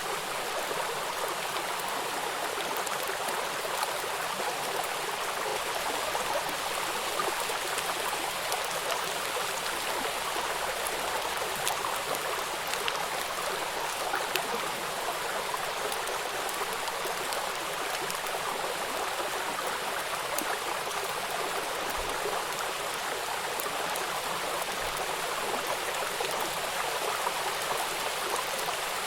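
Steady rain falling, a dense even hiss with many small drops pattering throughout.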